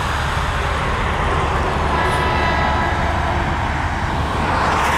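GE B23-7 diesel locomotive approaching a grade crossing, its engine giving a steady low rumble, with its horn sounding for the crossing; the horn's chord comes through more clearly from about two seconds in.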